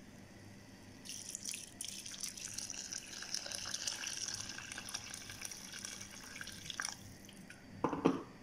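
Water being poured into a pan of rice and chicken pieces: a steady splashing stream that starts about a second in and stops about a second and a half before the end. It is followed by a short thump.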